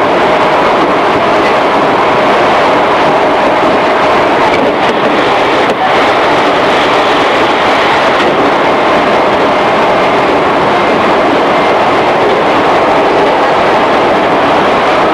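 Running noise inside a motor car of a JR East 211 series electric train: a steady loud rumble of wheels and running gear on the rails, with a faint steady hum through it and one brief dip about six seconds in.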